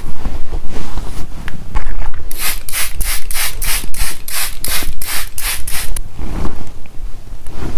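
A soft pad rubbing over the skin, then a quick run of about a dozen hissing puffs from a facial mist spray bottle, about three a second, as toner is sprayed onto the face.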